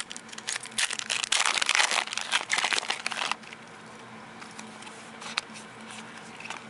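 Foil wrapper of a Topps Unique baseball card pack crinkling and tearing as it is pulled open by hand. The dense crackle stops about three and a half seconds in, leaving only a few faint clicks as the cards are handled.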